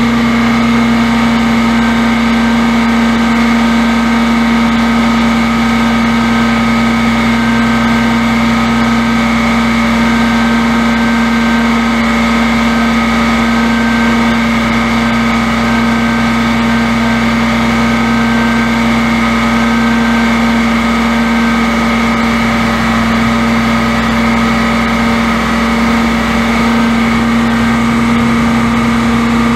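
Cummins six-cylinder turbo diesel of a 1987 FWD bucket truck running steadily at a constant speed, with a steady drone that does not change.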